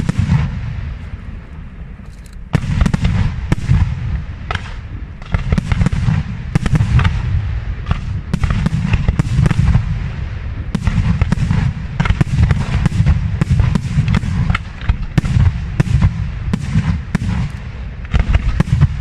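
Aerial firework shells bursting in rapid, overlapping volleys, with sharp reports over a deep rumble. After a loud burst at the start there is a lull of a couple of seconds, then the bursts come thick and nearly continuous.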